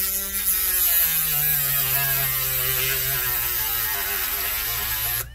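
Small rotary tool with a grinding wheel grinding down protruding copper screw ends on a laptop hinge. The motor whine sags in pitch and recovers as the wheel bears on the metal, over a gritty hiss, and cuts off suddenly about five seconds in.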